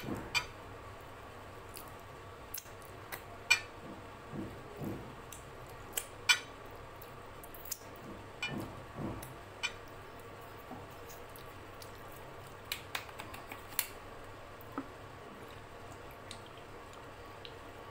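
Close-miked mouth sounds of eating by hand: scattered sharp lip smacks and finger-licking clicks with a few short bouts of wet chewing, spread irregularly and fading out near the end.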